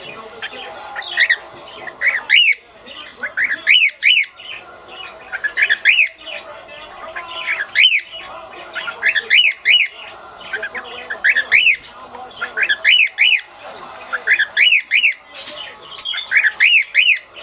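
Male cockatiel singing its courtship song: short, rising-and-falling whistled chirps in quick runs of two to four notes, repeated every second or so.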